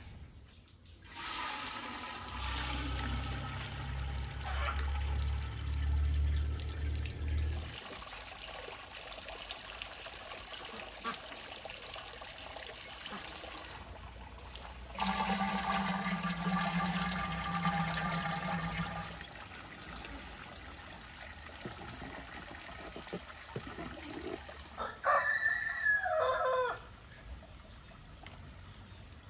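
Water pouring from a bowl through a metal colander into a bucket as soaked rice is drained. There is one long pour, then a second shorter pour a few seconds later. Near the end a rooster crows once.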